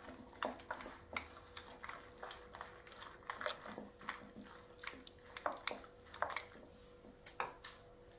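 Wooden hand churner (madhani) twirled between the palms in a glass bowl of runny besan-and-yogurt kadhi batter, whisking it smooth: faint, irregular light clicks and knocks of the wood against the glass, a few a second.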